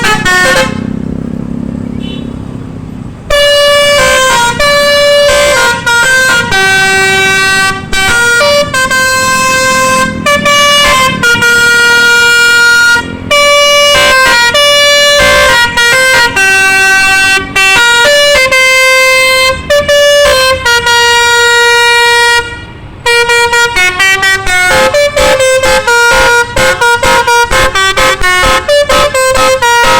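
Bus basuri (telolet) multi-tone air horn playing a tune of held and short notes, loud. A few seconds of lower rumble come first, the horn starts about three seconds in, and after a brief break near the end it plays a fast run of short notes.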